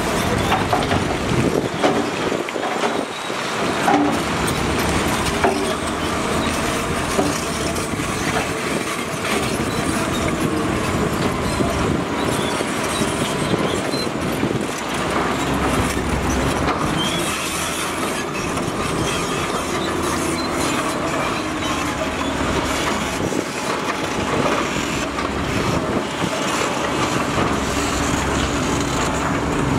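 Heavy earthmoving machinery working: a steady, loud mechanical din with shifting whining tones.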